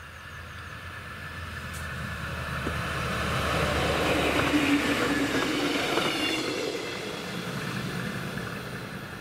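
Deutsche Bahn class 628 diesel multiple unit passing by. The low drone of its diesel engine and the rolling noise of its wheels on the rails swell to a peak about halfway through, with a couple of sharp wheel clacks, then fade as it moves away.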